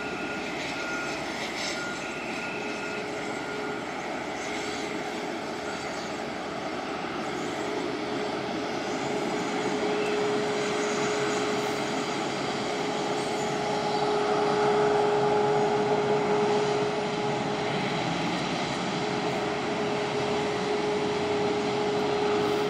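Jet airliner engines running: a steady rush with a whine that grows stronger from about ten seconds in, as the ANA Boeing 777-300 is pushed back and a second airliner taxis. A repeated beeping tone from ground equipment sounds in the first few seconds.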